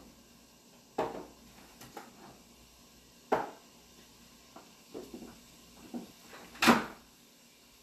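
Kitchen clatter: a handful of separate sharp knocks and clunks of things being handled and set down, the loudest near the end.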